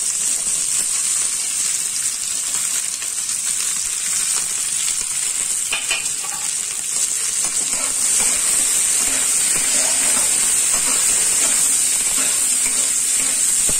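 Chopped okra sizzling as it fries in a little hot oil in a kadhai, a steady hiss that grows a little louder about eight seconds in.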